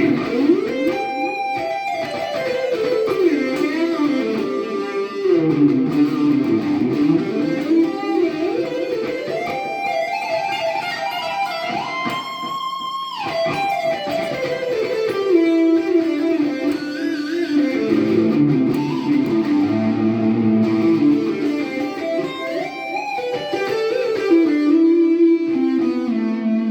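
2020 Squier Affinity Telecaster playing a distorted lead through a Marshall amp with delay and shimmer reverb: melodic runs climbing and falling, with held notes and a high note with vibrato about halfway through.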